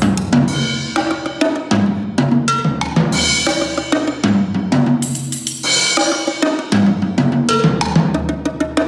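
Solo multi-percussion playing on a drum setup of small toms and a floor tom: fast, dense strokes moving between drums of several pitches, with ringing metal hits among them.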